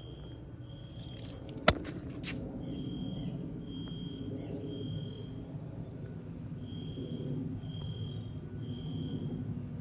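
Fire alarm sounding a high-pitched beep in the temporal-3 evacuation pattern: three short beeps, a pause, then three more, over a steady low background rumble. A sharp click about two seconds in, and a few faint bird chirps.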